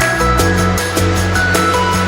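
Electronic background music with a steady beat, bass line and held synth notes.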